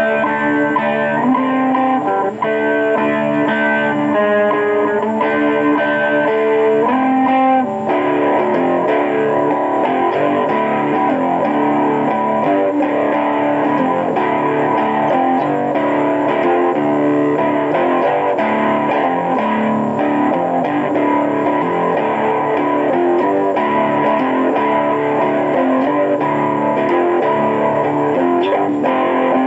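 Electric guitar playing. Clearly separate notes for the first several seconds give way to a denser, continuous passage about eight seconds in.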